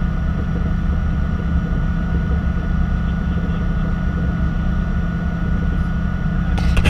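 Nissan 180SX idling at a standstill: a steady low engine and exhaust rumble with a thin steady whine above it. A few sharp clicks come near the end.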